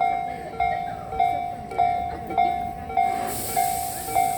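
Railway level-crossing warning bell ringing its repeated electronic clang, a little under two strikes a second. A hiss starts about three seconds in.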